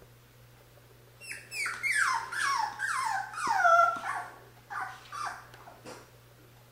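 Cocker spaniel puppy whining in a quick run of high cries, each falling in pitch, about three a second for some three seconds, then two shorter cries.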